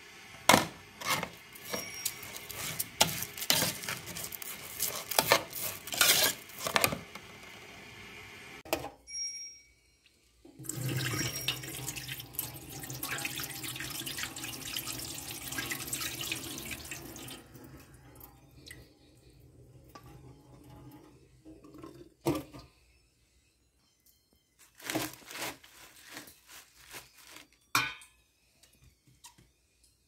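A metal spoon stirring cooked rice in an aluminium pot, with sharp clinks and knocks against the pot for the first several seconds. Then water pours steadily from a bowl into a stainless steel sink for about seven seconds. After that comes quieter scraping, with a few sharp clinks of a fork tossing salad in a bowl.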